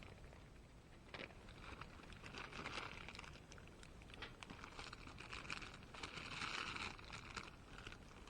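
Rustling with many small clicks and taps, like objects being handled; the rustling is loudest about two to three seconds in and again about six to seven seconds in.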